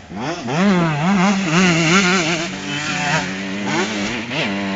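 KTM 144 SX single-cylinder two-stroke motocross bike running under throttle, its pitch rising and falling quickly over the first couple of seconds, then holding steadier.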